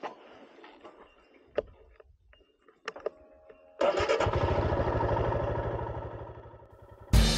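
A few faint clicks, then about four seconds in a motorcycle engine starts up suddenly and runs steadily, getting quieter over the next few seconds. Guitar music comes in right at the end.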